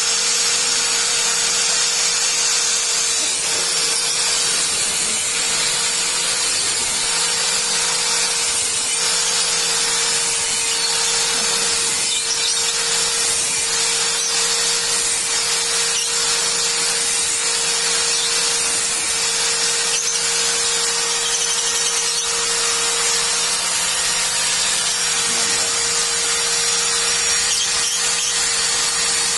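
Electric angle grinder running steadily with a sanding disc worked against a motorcycle clutch basket, a constant whine over a rough grinding hiss. It is smoothing out notches that the clutch friction plates have worn into the basket's fingers.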